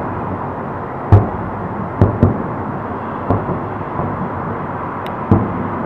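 Aerial firework shells bursting in the distance: a series of sharp booms, the loudest about a second in and another near the end, over a steady background hiss.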